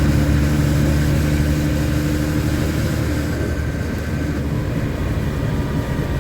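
LMTV military truck's diesel engine running under way, a steady low drone with road and cab noise; the engine note eases off a little about four seconds in.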